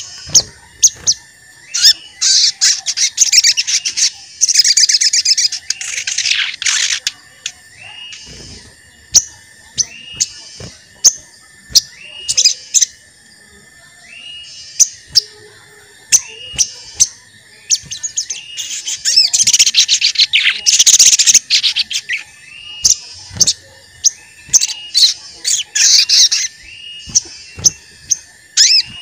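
Sogon (crimson sunbird) calling: sharp, high "cuit" chirps repeated about once a second, broken twice by longer, rapid, chattering trills.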